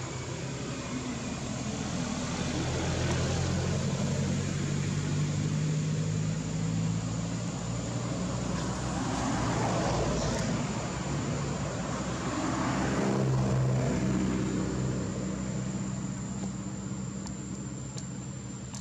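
Low engine hum of passing motor vehicles, swelling and fading twice, over a steady thin high whine.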